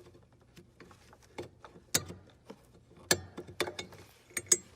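Irregular sharp plastic clicks and knocks, about seven of them, as the stock 9005 halogen low-beam bulb is twisted anti-clockwise out of its headlight-housing socket and handled.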